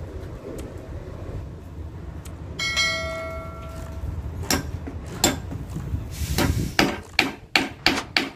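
A knife chopping through fish on a wooden board: a run of sharp knocks that come faster toward the end, about three a second. Before them comes a single bell-like ding that rings for about a second and a half.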